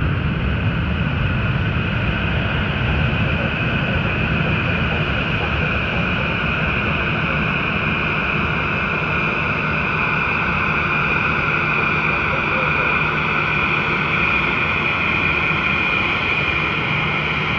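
Steady roar of a four-engine Boeing 747's jet engines at takeoff power, mixed with a road vehicle's low rumble. A high whine grows a little stronger after the middle.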